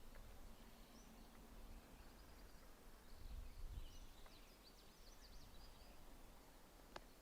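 Near silence: faint outdoor ambience with a few distant high-pitched bird chirps in the middle and a single click near the end.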